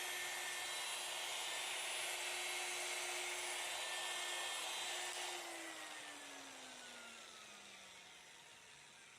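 Electric polishing machine buffing a headlight lens with cutting compound, running steadily, then switched off about five seconds in: its pitch falls as it winds down and fades out.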